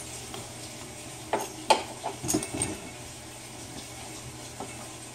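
A few sharp metallic clanks and clicks from aluminium injection molds and C-clamps being handled and clamped tight, the two loudest about a second and a half in, followed by a quick cluster of lighter clicks. A steady low hum runs underneath.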